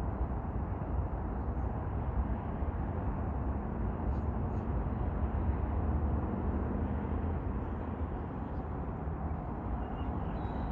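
Steady low rumble of a jet airliner's engines heard from the ground, holding level without a clear rise or fall.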